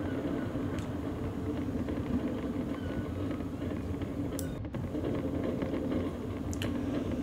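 Mobility scooter running along a path: a steady rumble from the wheels over the surface with a constant low motor hum, and a few faint ticks.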